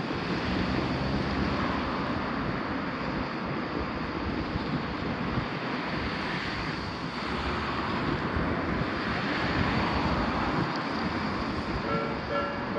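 Steady rushing noise, like wind buffeting the microphone. Near the end a railroad crossing warning bell starts ringing in repeated pulses.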